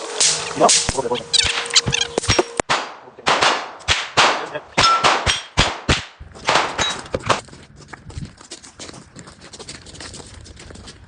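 Rapid, irregular gunfire: about fifteen sharp shots over the first seven seconds, some with a brief metallic ring, then fainter scattered shots and clicks.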